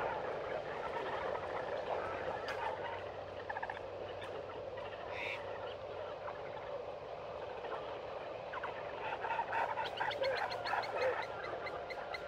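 A group of meerkats chattering and chirping with many short overlapping calls, with a quicker run of rapid calls about nine seconds in.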